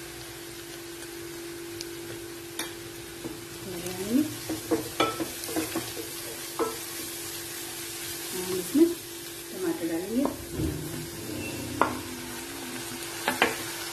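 A wooden spatula stirs grated onions and spices frying in a Prestige non-stick pan, with irregular scraping strokes against the pan over a light sizzle. Near the end there are a few sharp knocks as grated tomato is scraped in from a steel tray.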